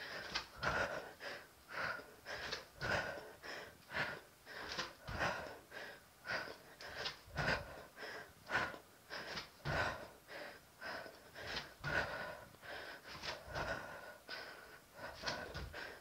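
A woman breathing hard through a set of switch lunges: short, forceful breaths in a steady rhythm of about two to three a second.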